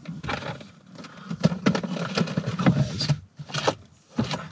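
Food packs being put into a plastic portable electric cool box: scrapes and rustling, then a series of sharp knocks and clicks as the lid is shut near the end.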